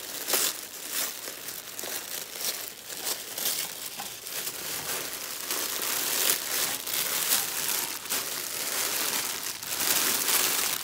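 Tissue paper rustling, then a clear plastic bag crinkling as hands unwrap and lift a plastic-wrapped knit baby garment; the crinkling gets louder near the end.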